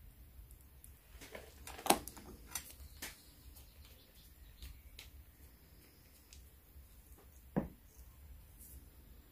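Faint clicks and taps of a long fingernail and fingers against a clear jar of dip powder during dipping, with two sharper taps, one about two seconds in and one near the end.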